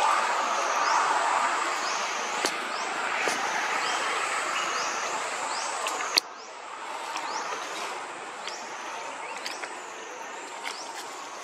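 Outdoor background sound: a steady rushing noise with a high-pitched chirping pattern repeating evenly over it. A sharp click comes about six seconds in, and after it the rushing is quieter.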